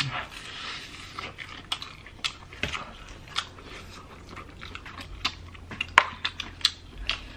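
People chewing spicy chicken wings with their mouths open: wet mouth clicks and lip smacks coming irregularly, the loudest about six seconds in.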